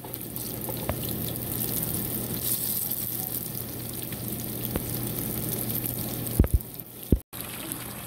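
Eggplant strips sizzling in hot oil in a frying pan, with scattered small crackles and a steady low hum underneath. Two dull knocks come near the end, then after a brief break tofu cubes sizzle in oil.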